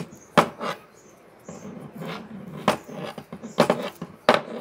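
Stretchy red plastic tape being pulled and wound tight around a hammer handle, giving a string of sharp crackles and rustles with short gaps between them.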